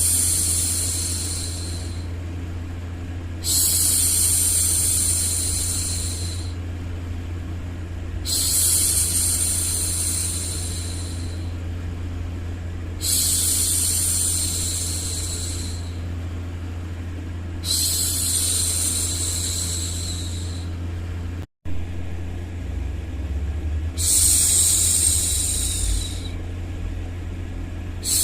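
A woman hushing 'shhh' over and over, about six long shushes each lasting around two seconds and coming every four to five seconds. A steady low hum of background noise runs underneath, with a split-second dropout a little past two-thirds of the way through.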